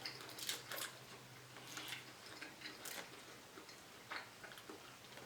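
Faint, irregular soft clicks and smacks of a person chewing tender BBQ ribs with the mouth close to the microphone.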